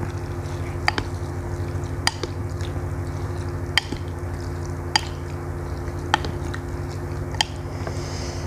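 Wooden chopsticks and a wooden spoon stirring Indomie noodles and bakso meatballs in a ceramic bowl, with soft wet squishing. Six sharp clicks of the utensils against the bowl come about once a second. A steady low hum runs underneath.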